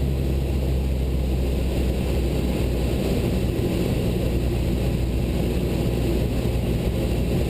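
Cessna 172 Skyhawk's four-cylinder piston engine and propeller droning steadily, heard from inside the cabin.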